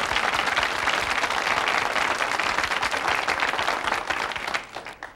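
Studio audience applauding: a dense patter of many hands clapping that dies away near the end.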